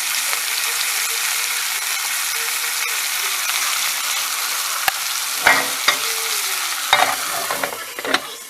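Chicken sizzling in hot oil in a Dutch pot: a steady frying hiss, with a few short clatters about five to eight seconds in.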